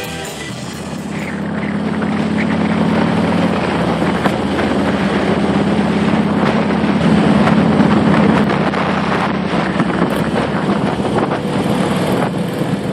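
Motorcycle engines running at road speed, with wind rushing over the microphone; the sound grows louder over the first couple of seconds, then holds steady.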